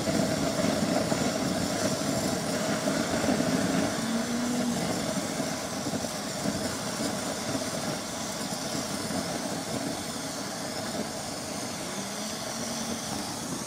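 Handheld butane gas torch burning steadily, its flame blowing down onto scrap lead in a pot on a portable gas stove to speed the melting; a steady rushing flame noise with a low rumble.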